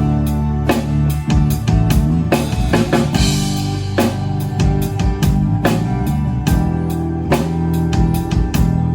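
A live band playing an instrumental passage with no vocals: drum kit with kick drum and cymbals keeping a steady beat under sustained guitar and low bass notes.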